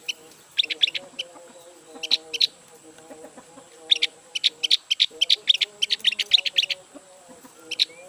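Javan grey-throated white-eye (opior jawa) giving rapid bursts of sharp, high chattering calls: short clusters near the start and a longer, dense run from about four to seven seconds in. It is a newly bought bird that is not yet in full song.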